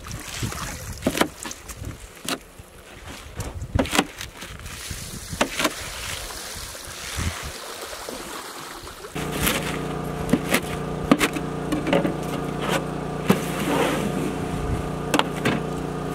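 Knife chopping leafy greens on a plastic cutting board: irregular sharp knocks. About nine seconds in, a steady engine-like hum starts and runs on under the chopping.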